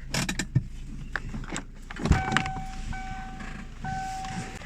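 Hyundai Accent steering squeaking three times in a row, each a level, drawn-out cricket-like squeak just under a second long, as the steering wheel is turned. The squeak comes from the steering rack area and is later put down to dry tie-rod ends. It is preceded by a few clicks and a low thump.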